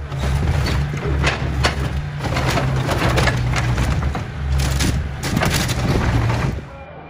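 Excavator bucket crushing a convertible car's body: metal crumpling and glass cracking in many sharp, irregular crunches, over the steady low drone of the excavator's engine. It stops abruptly near the end.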